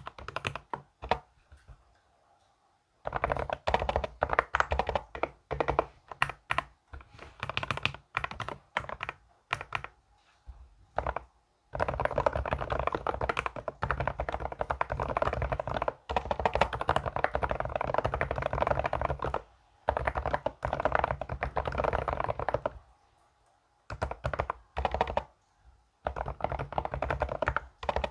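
Fast typing on a computer keyboard: runs of rapid keystrokes broken by short pauses, with one long unbroken run in the middle.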